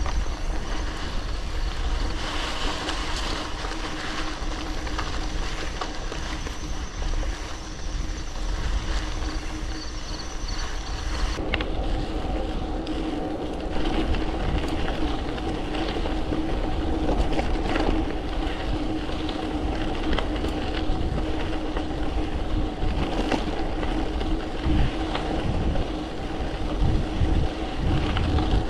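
A gravel bike's tyres rolling over a sandy dirt track and then loose gravel, with wind rushing on the microphone and a steady hum from the moving bike. The sound changes abruptly about a third of the way in, becoming fuller and rougher.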